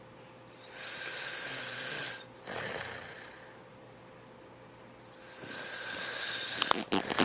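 A person snoring in his sleep: two noisy breaths one after the other about a second in, a pause of about two seconds, then another breath that swells near the end. It is cut off by a burst of loud, sharp crackling clicks.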